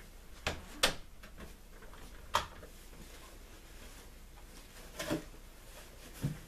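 Handling noises from a person moving about with a cardboard box and a coat: about five short knocks and thumps, the sharpest just under a second in and another at about two and a half seconds.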